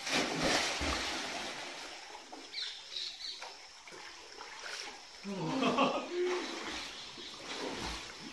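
Water splashing, loudest in the first couple of seconds and then dying down, with a voice calling out briefly about five seconds in.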